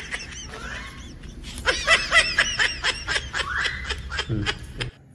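Sniggering laughter: a run of short, high-pitched laughs, fainter at first and louder from under two seconds in, stopping just before the end.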